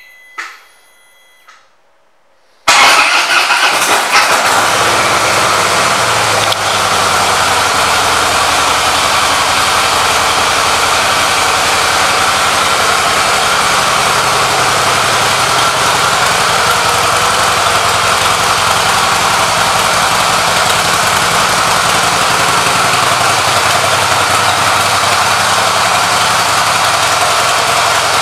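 Harley-Davidson CVO Breakout's Twin Cam 110 V-twin starting after a few short beeps, catching loud about two and a half seconds in. It then settles into a steady idle.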